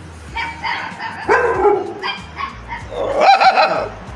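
A dog barking and yipping: a few short barks, then a longer, louder call about three seconds in.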